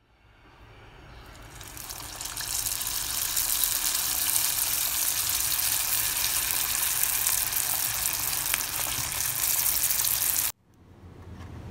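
Turon, banana and jackfruit spring rolls, sizzling in hot oil in a small saucepan: a steady frying hiss that fades in over the first couple of seconds and cuts off abruptly near the end.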